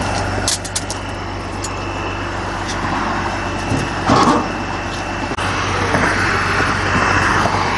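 Diesel engine of a Freightliner heavy wrecker running steadily, with a few light clicks about half a second in and a brief louder noise about four seconds in.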